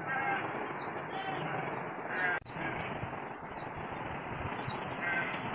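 A bird calling about four times in short separate calls, over a steady outdoor hiss.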